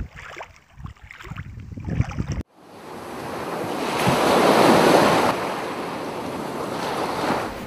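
Sea surf washing on a beach, with wind gusting on the microphone. After a sudden cut a couple of seconds in, a steady wash of surf swells to its loudest about halfway through, then eases.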